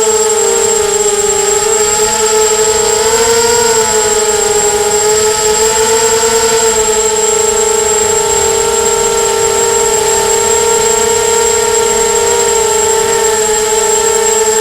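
Small FPV quadcopter's brushless motors and propellers whining in flight, the pitch wavering gently up and down as the throttle changes. A thin, steady high-pitched tone sits above it.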